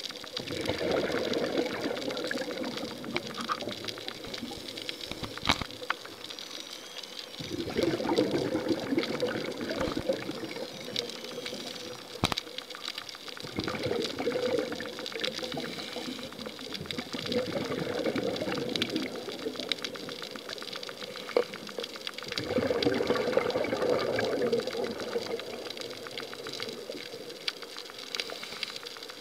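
Scuba diver's exhaled bubbles rushing past an underwater camera housing: about five bursts of bubbling, each a couple of seconds long, with quieter stretches between them and a few sharp clicks.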